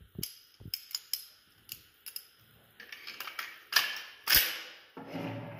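Metal parts of an AKS-74U rifle being handled and fitted together: a run of irregular sharp clicks and clacks, the loudest about four seconds in, followed by a brief scraping noise near the end.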